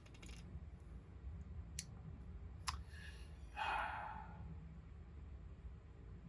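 A few sharp light clicks of small hard objects, then a brief hiss or rustle a little past halfway, over a low steady hum.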